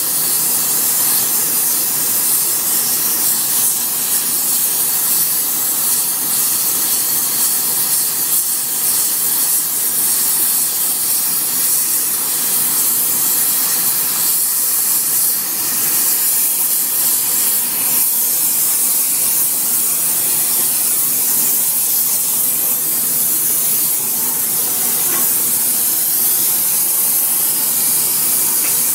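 Gas brazing torch flame hissing steadily while it heats the edge of a steel sugar-cane hammer for brazing on TufCote hardfacing.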